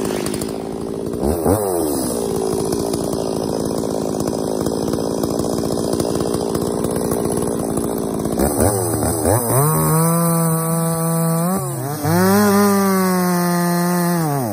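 Stihl MS260 two-stroke chainsaw idling, with a short rev about a second and a half in. About eight seconds in it is revved to full throttle and cuts into a log, easing off briefly before a louder final stretch of cutting that drops off at the end.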